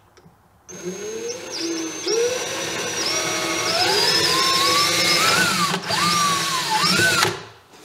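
Cordless drill boring a small hole through a wooden panel. It starts a little under a second in, and its motor whine rises and falls in pitch as it works, breaking off briefly near the six-second mark before it stops shortly before the end.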